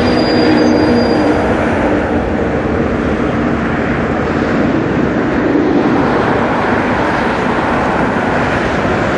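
Boeing 777 on final approach, its jet engines making a steady, broad rushing noise.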